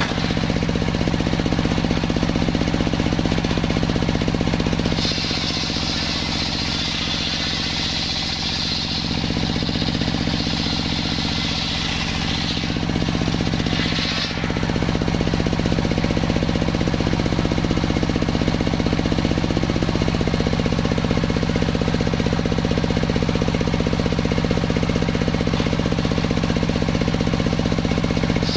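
Large sawmill circular saw blade ripping lengthwise through a big salam log, with a steady low hum from the saw's drive underneath. About five seconds in the cutting noise eases and a high ringing whine takes over for several seconds, then the heavier cutting sound returns.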